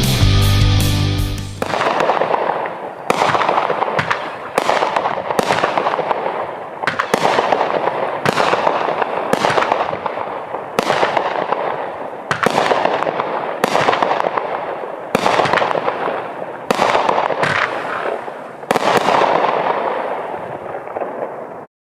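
16-shot 200-gram consumer fireworks cake firing, about sixteen sharp shots at roughly one every second and a half, each followed by a noisy tail that fades before the next. The shots cut off suddenly near the end as the cake finishes.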